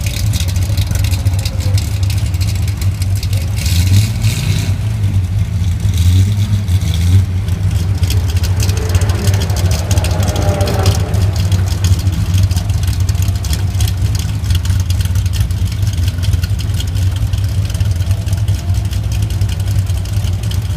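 An engine running steadily with a strong, deep drone.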